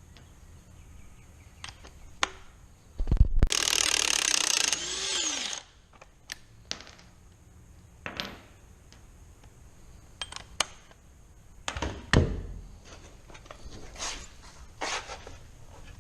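Metal tools and parts clinking and knocking during brake work, with one burst of about two seconds from a power tool about three seconds in that winds down with a falling whine.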